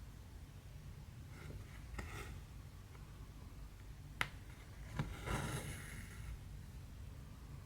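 Hand cross-stitching on 14-count canvas: a few sharp ticks of the needle piercing the fabric, the clearest about four seconds in and another at five seconds, followed by about a second of rasping as the thread is drawn through. A low steady hum runs underneath.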